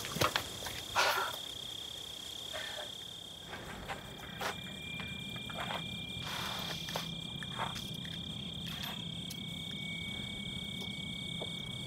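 Steady, high-pitched drone of a forest insect chorus, with a few short rustles and crunches in the first part and a faint low hum joining about halfway through.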